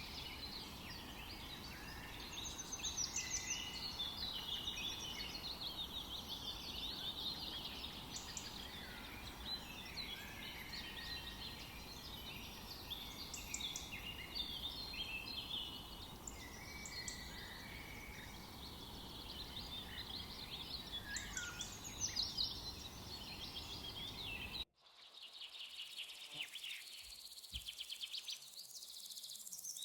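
A chorus of many small birds chirping and calling over one another, over a steady low background hum. About 25 seconds in, the background noise cuts out abruptly and the birdsong carries on more clearly.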